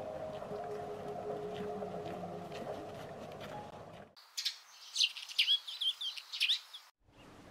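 Small birds chirping in a quick, high-pitched burst of twittering for about three seconds, starting and stopping abruptly, after a few seconds of low steady background hum.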